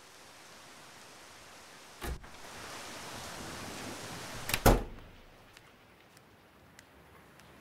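Interior door being worked: a sharp latch-like click about two seconds in, then a louder cluster of heavy knocks near the middle, over a steady hiss. After the knocks the hiss drops and a few faint, sharp ticks follow.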